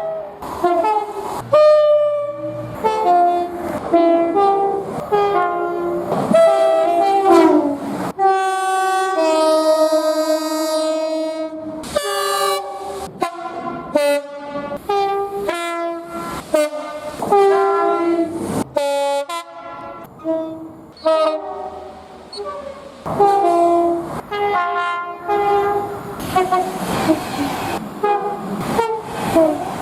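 Locomotive air horns sounding chords in a long run of short blasts, many cut off abruptly, with one chord held for about three seconds near the middle.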